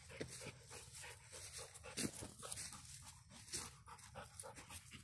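Dog panting close to the microphone: a run of short, quick, rough breaths.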